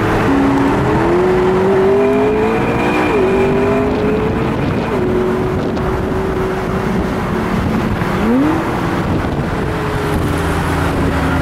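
McLaren 12C Spider's twin-turbo V8, heard from inside the cabin, accelerating: its note climbs and drops sharply at gear changes about three and five seconds in, then holds steady. Near eight seconds it dips and climbs again. Steady road and wind noise runs underneath.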